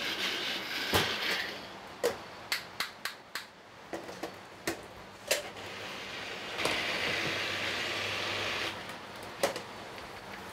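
A small countertop blender chopping a basil and herb sauce. It runs briefly at the start and again for about two seconds in the second half. In between come sharp clicks and knocks of the jar being handled on its base, with one more click near the end.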